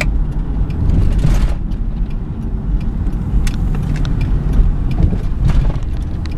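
Car interior noise while driving: a steady low rumble of engine and road, with a few light clicks and knocks.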